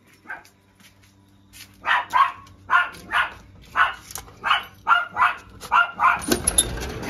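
Miniature dachshund barking about a dozen times in quick succession, starting about two seconds in, while jumping against the door to be let out; a noisy scuffle follows near the end.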